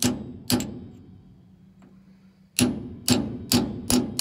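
Hammer blows on a steel tool held against a truck differential's pinion seal, crushing the stuck seal to get it out. Two sharp metallic strikes about half a second apart, a pause, then four quicker strikes near the end.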